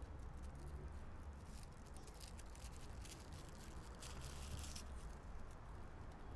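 Quiet outdoor background: a steady low rumble, with faint crackling rustles in the middle.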